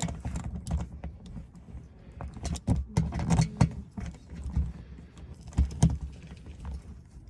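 Hand ratchet with a 10 mm socket tightening bolts: uneven clicks and metal knocks with clatter and handling noise, several loud knocks around the middle and near the end.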